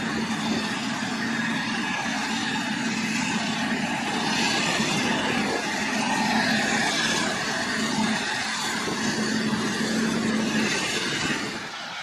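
Claas Jaguar forage harvester chopping maize while a tractor runs alongside catching the crop: a steady, heavy machinery drone from engines, chopper and crop flow. It drops a little shortly before the end.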